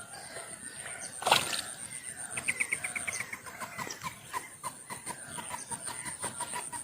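Bird calls: a quick run of high chirps, then a long series of short, evenly spaced clucking notes, about three a second. A single sharp knock comes about a second in, and a steady high-pitched tone runs underneath.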